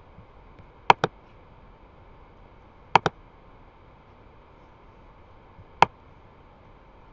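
Laptop pointer-button clicks while selecting software effects: a quick double-click about a second in, another about three seconds in, and a single click near the end, over a faint steady hiss.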